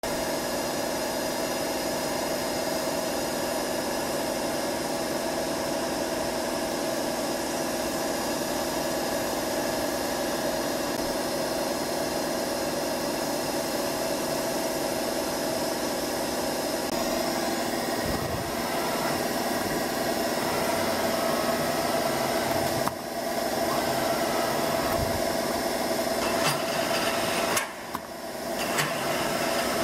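Wagner BVT 1270 2VS universal milling machine running: a steady mechanical hum with several whining tones, which shifts about two-thirds of the way through and briefly drops out twice near the end.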